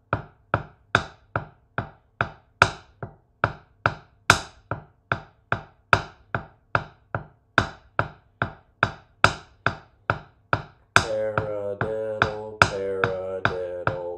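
Drumsticks playing paradiddles on a practice pad: even, sharp taps about two and a half a second, every fourth one accented. About eleven seconds in, a steady pitched hum comes in under the taps.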